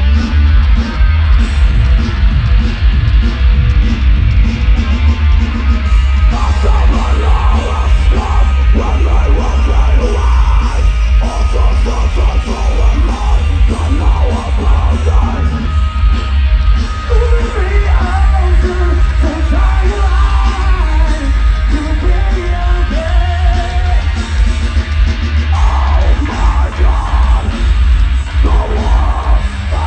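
Live metal band playing through a festival PA: distorted electric guitars and pounding drums with heavy bass, and a vocalist yelling and singing from about six seconds in.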